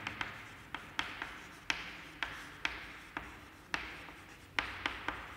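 Chalk writing on a blackboard: a string of sharp, irregular chalk taps, two or three a second, each trailing off in a short scratch as the letters are formed.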